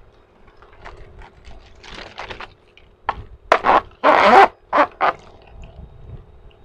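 A plastic straw being worked up and down through the lid of a drink cup, with a series of loud scraping, squeaking strokes over about a second and a half, the longest about four seconds in, after some light handling clicks.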